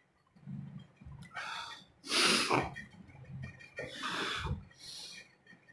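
A man's forceful breaths and snorts through the nose and pursed lips, five or so separate puffs with the loudest about two seconds in. He is still recovering from the burn of an extremely hot chili chip.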